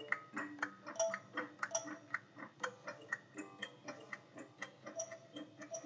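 Rapid, uneven ticking and clicking, about four a second, with short pitched notes among the clicks.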